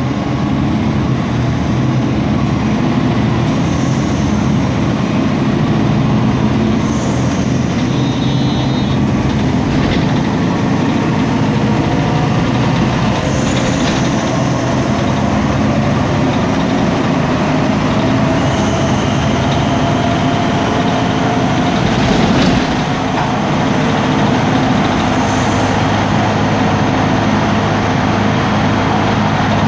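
MAN Lion's City G articulated bus's MAN E2876 straight-six CNG engine, heard from inside the cabin, pulling with its pitch rising slowly over about ten seconds. A sharp knock comes about two-thirds of the way through, and the engine then settles to a lower, steady hum. There are several brief high hisses at intervals and a short beep about eight seconds in.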